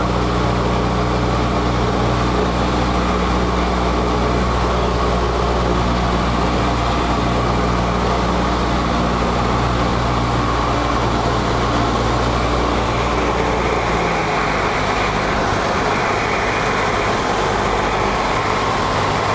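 Cessna 172's piston engine and propeller heard from inside the cockpit, a steady loud drone with airflow noise. About three quarters of the way through, the deepest part of the drone drops away.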